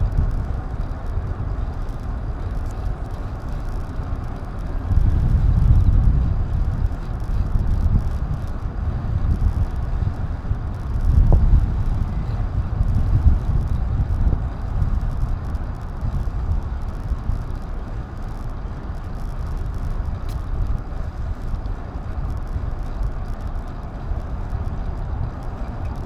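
Wind rumble and road noise picked up by an action camera's microphone while riding, with no clear engine note. It swells louder twice, about 5 and 11 seconds in.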